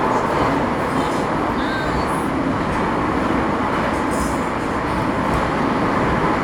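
Metro train running steadily through a tunnel, heard from inside the car: a continuous rumble and rush of wheel and tunnel noise.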